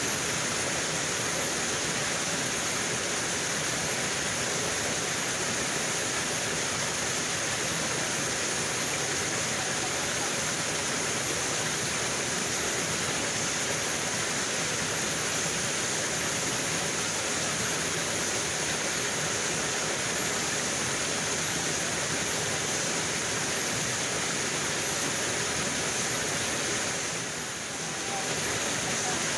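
Mountain stream rushing over rocks: a steady, even water noise, dipping briefly near the end.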